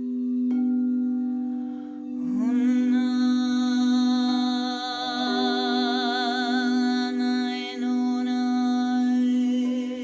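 Crystal singing bowls ringing with a steady low tone, a fresh bowl tone struck about half a second in. From about two seconds in, a wordless voice slides up into long held notes with vibrato over the bowls.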